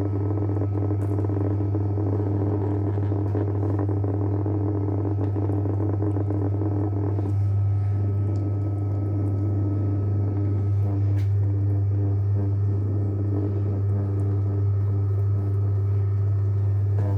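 JW Ratcliffe and Sons electric pottery wheel running at reduced speed with a steady low motor hum, its sound changing somewhat about seven seconds in, while porcelain is being thrown on it.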